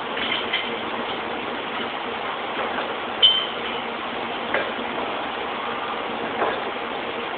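Steady factory machinery noise with a few clinks and knocks of metal parts being handled. A sharp ringing metal clink a little past three seconds in is the loudest.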